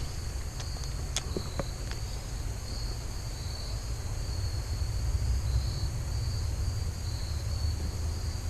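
Insects, likely crickets, chirping steadily in a high, pulsing band over a low steady rumble, with a few light clicks in the first two seconds.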